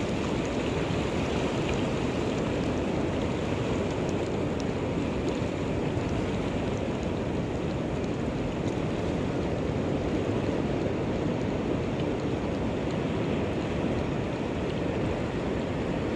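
Sea waves washing over and around a shallow rocky reef edge: a steady rushing wash of surf.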